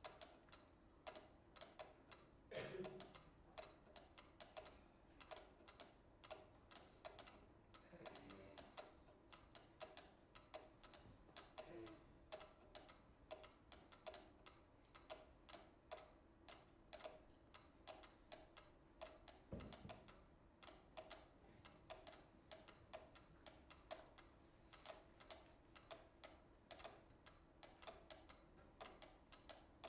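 Several mechanical pyramid metronomes tick at different tempos at once, their clicks interlocking in shifting cross-rhythms. A few duller knocks sound among them, the clearest about twenty seconds in.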